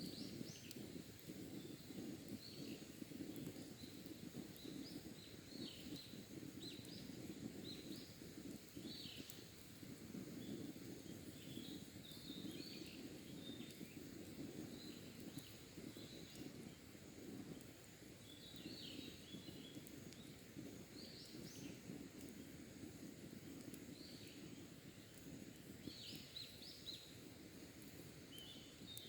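Wild birds chirping and singing in short scattered phrases, faint, over a low crackle of a campfire burning down to embers.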